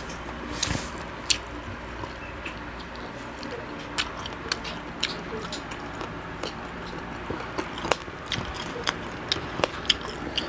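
Close-up chewing and biting of frog meat, with many irregular sharp clicks and crunches.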